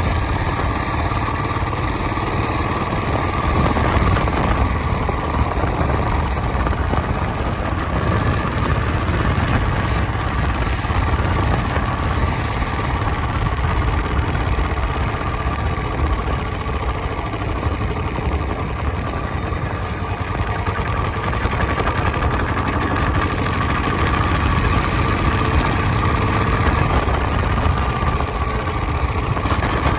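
Royal Enfield 350 single-cylinder motorcycle engine running steadily while riding, with wind rush on the microphone.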